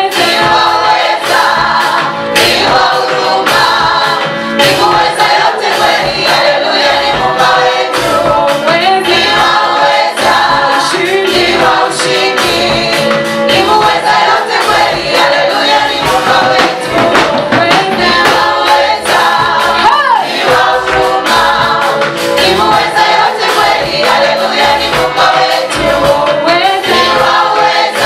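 Choir singing a gospel song with band accompaniment over a steady beat.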